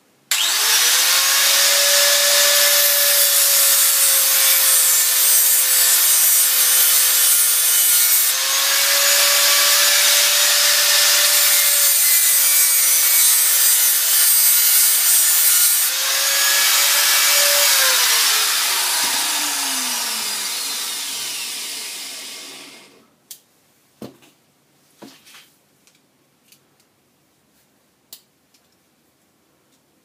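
Small electric angle grinder starting up and grinding down the tip of a steel Phillips driver bit clamped in a vise: a steady motor whine under a loud, harsh grinding hiss that dips briefly twice. About eighteen seconds in it is switched off and its whine falls away as the disc spins down, followed by a few light clicks and knocks.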